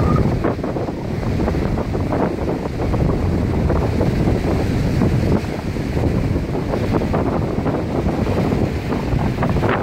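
Wind buffeting the microphone over surf breaking on the shore, a loud, steady rumble with no pause.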